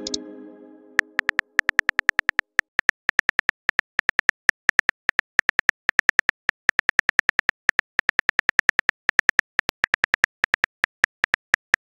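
Smartphone keyboard click sounds, a fast, slightly irregular run of sharp ticks at about six a second, as a text message is typed. It opens on the fading ring of a plucked tone.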